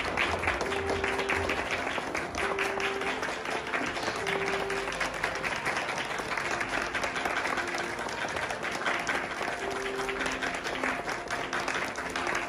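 Audience applauding steadily, with music playing underneath: a slow melody of held notes.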